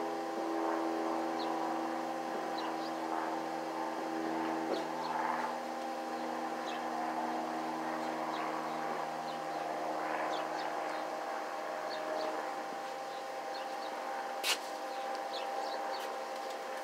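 Small engine, likely an engine-driven welder, running steadily with an even hum. Birds chirp throughout, and there is one sharp click near the end.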